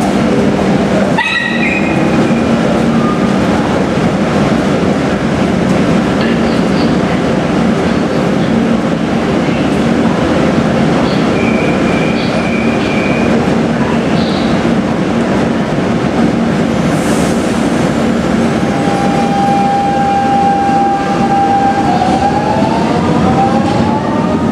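Lisbon Metro electric train standing at an underground platform with a steady rumble, a short beeping tone in the middle, then pulling out near the end with the rising whine of its traction motors.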